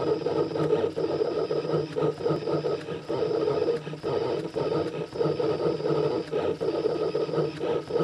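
Stepper motors of a homemade CNC machine driving a pen across paper, running in short stretches of half a second to a second broken by brief pauses as each stroke of lettering is drawn, with light clicks between moves.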